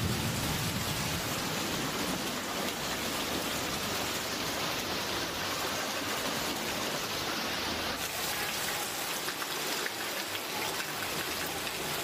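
Rain falling steadily, an even hiss of water with no let-up.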